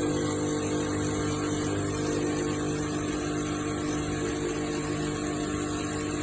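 Steady mechanical hum with a wide rushing noise over it and a few fixed low tones, unchanging throughout.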